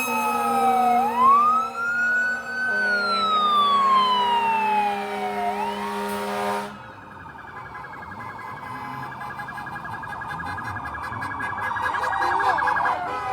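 Electronic siren wailing, its pitch sliding down, up and down again over steady tones, then cutting off about seven seconds in. A quieter, fast-pulsing warble tone follows and stops near the end.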